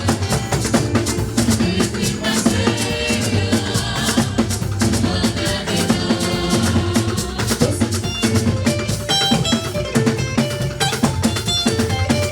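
Church band music with a drum kit keeping a steady beat under pitched instruments.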